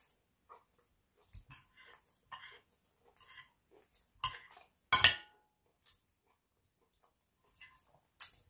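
Knife and spoon scraping and clinking against a plate while cutting chicken, in short irregular strokes, the two loudest about four and five seconds in.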